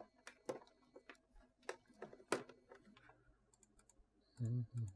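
Scattered, irregular clicks of a computer keyboard during sample editing. Near the end, two short snippets of the sampled music play back with a strong low note.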